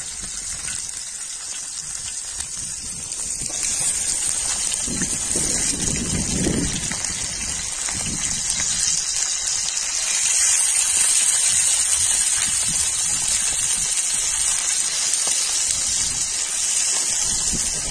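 Indian mackerel sizzling as it fries in shallow oil in an iron pan over a wood fire: a steady, hissing sizzle that gets louder about ten seconds in. Low gusts of wind rumble on the microphone now and then.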